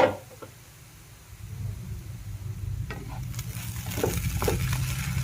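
Spatula stirring a steamed puffed-rice mixture in a pan on the stove: a knock at the start, then a few scrapes against the pan over light sizzling. A steady low hum grows underneath from about a second and a half in.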